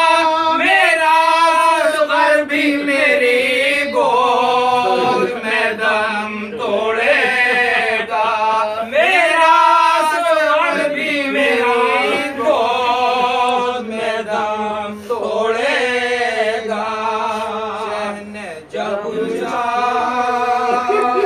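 Several men's voices chanting an Urdu Muharram elegy together, unaccompanied, in long drawn-out sung phrases.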